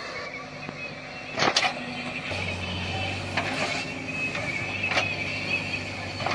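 Heavy machine's diesel engine running steadily, its hum rising about two seconds in, with a sharp metallic knock about a second and a half in.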